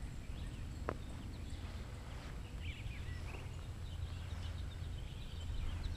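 Songbirds chirping in short, scattered calls over a steady low rumble, with a single sharp click about a second in.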